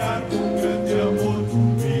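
Choir singing with instrumental accompaniment, a song with held notes.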